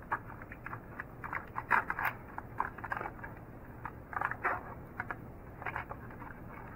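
Plastic snack-tray packaging being peeled open by hand: irregular short crackles and crinkles with a few sharp plastic clicks.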